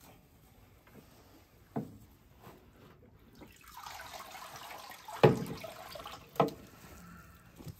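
Water pouring and dripping back into a bucket as a soaked deer head with antlers is lifted out of it, the stream running from about halfway through. A few sharp knocks come with it, the loudest about five seconds in.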